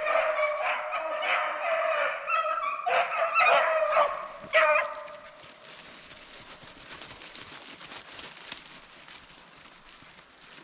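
Hunting dogs baying and barking in a rapid run of calls for about five seconds, then fading to faint rustling.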